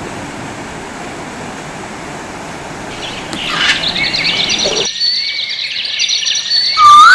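Birds chirping and whistling over a steady rushing noise. The birdsong starts about three seconds in. The rushing cuts out abruptly about five seconds in, leaving the birdsong alone, and a louder whistled call rises near the end.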